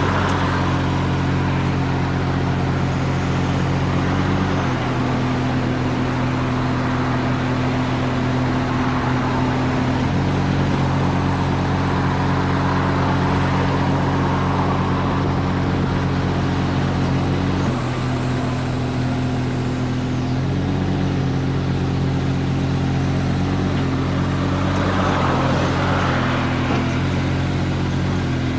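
Mitsubishi MM20CR mini excavator's diesel engine running steadily, its note stepping down and back up several times.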